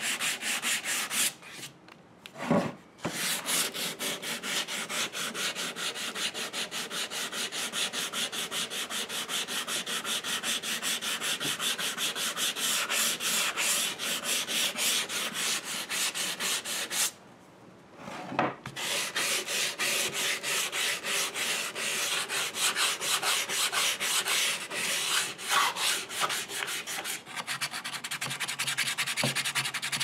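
Sandpaper rubbed back and forth over a maple guitar body in quick, even strokes, sanding out router burn marks before the clear coat. The strokes stop briefly twice.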